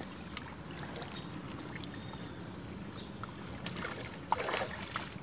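Small splashes and water sloshing as a boga is released by hand into shallow river water, with a short burst of splashing about four seconds in. A steady low wind rumble on the microphone runs underneath.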